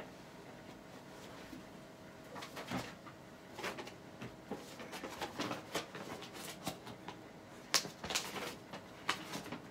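Faint, scattered clicks, knocks and rustles of objects being handled, starting about two seconds in.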